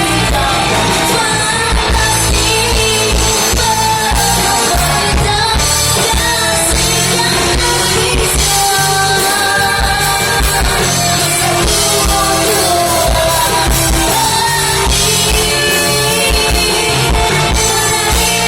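Singer and band performing a Malay pop-rock song, with the singing over a steady beat.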